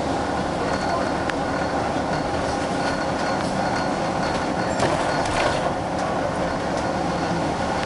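Inside a moving bus: steady engine and road rumble with a faint steady whine, light clicks and rattles, and a slightly louder stretch about five seconds in.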